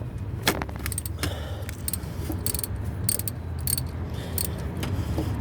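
Socket wrench working the 12 mm bolts on a car's shift linkage: irregular, sharp metallic clicks and clinks, about one or two a second, over a steady low hum.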